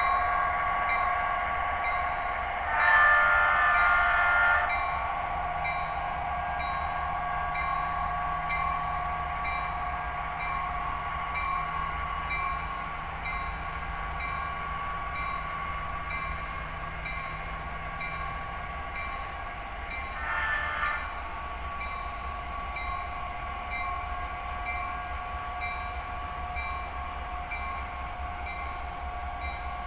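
HO scale model diesel locomotive's Loksound sound decoder playing an EMD diesel engine running steadily through its small speaker, with a horn sounded twice: a longer blast about three seconds in and a short one about twenty seconds in.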